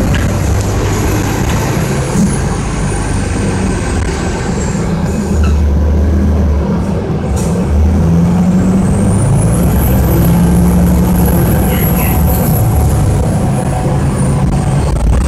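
Orion VII transit bus's Detroit Diesel engine running under way, heard from inside the cabin near the rear: a heavy low rumble that changes in steps, with a thin high whine that falls, rises again midway and falls near the end.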